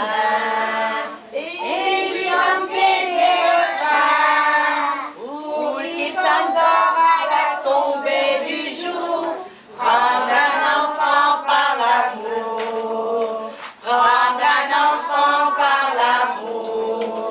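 A group of young children singing a French song together without words being picked out clearly, in phrases broken by brief pauses every few seconds.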